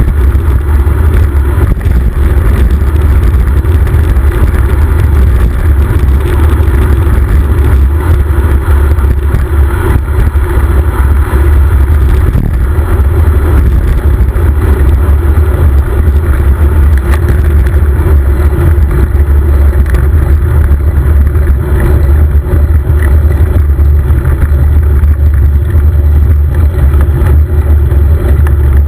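Wind buffeting the microphone on a moving bicycle: a loud, steady low rumble with no let-up.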